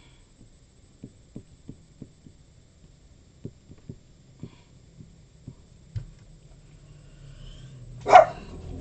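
Faint, irregular clicks of a computer mouse button, pressed and released stroke by stroke while writing in a paint program, over a low hum. Near the end there is one short, louder noise.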